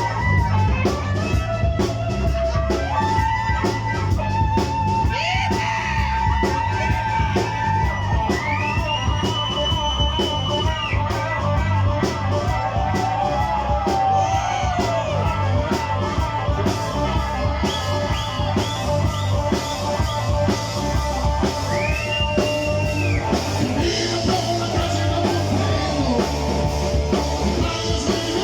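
Blues-rock band playing, with an electric guitar playing long held notes over bass and drums. Twice the guitar glides up to a high note, holds it, and falls back.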